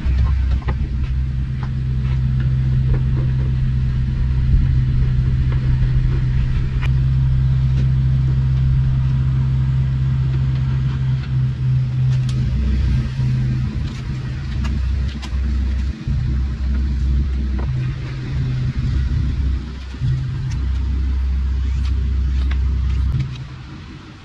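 Two-stroke 360cc Daihatsu Hijet kei truck engine running under way, a steady low drone that shifts in level several times and falls away near the end.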